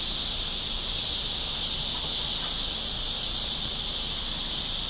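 Steady summer insect chorus: a continuous high-pitched buzz that holds at an even level without pauses.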